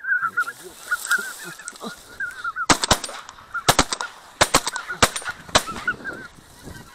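A volley of shotgun shots, about ten sharp reports fired in quick succession over some three seconds, starting a little under three seconds in. Hunters are shooting at incoming geese, which keep honking throughout.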